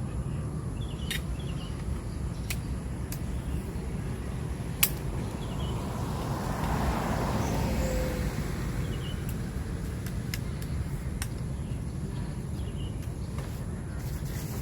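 A vehicle passing by, swelling up and fading away over a couple of seconds midway through, over a steady low rumble, with a few sharp clicks, one louder than the rest a little before.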